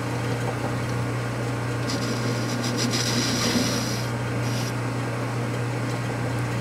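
Metal lathe running with a steady hum while its cutting tool takes a cut on a spinning metal collar. A higher scraping hiss comes in about two seconds in and fades out a second and a half later.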